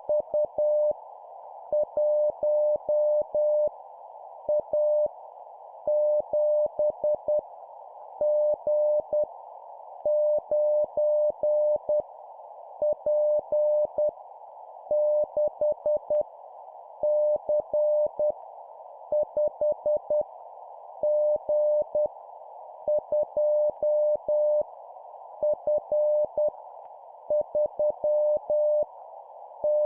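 Morse code (CW) at 10 words per minute sending random letters and numbers: a single steady beep tone keyed on and off in dots and dashes, with short pauses between characters, over a constant band of hiss like a receiver's filtered noise.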